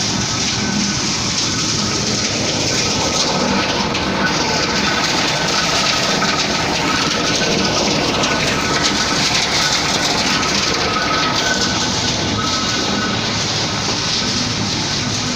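Heavy vehicle running with a steady, loud rumble and rattle.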